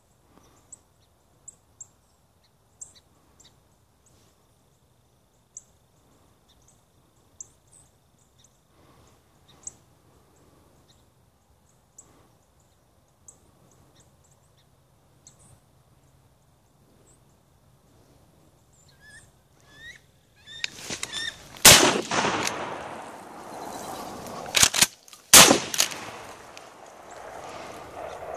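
Faint scattered chirps and ticks for about twenty seconds. Then a Winchester SXP pump-action shotgun is fired three times, the last two close together a few seconds after the first, amid rustling and handling noise.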